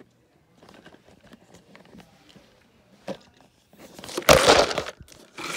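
Small plastic clicks as a Lego spinning top is handled and fitted together, then a loud rustling, rubbing noise about four seconds in from the phone being handled and moved, and a shorter one near the end.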